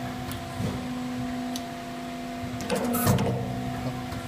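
Fastener-insertion press humming steadily, with one pressing stroke about three seconds in: a short clatter ending in a sharp clack as the punch drives a self-clinching fastener into the sheet-metal tab.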